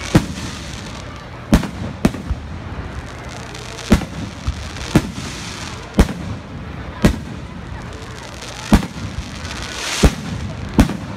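Aerial firework shells bursting overhead in quick succession: about a dozen sharp bangs at uneven intervals, over a steady background rumble.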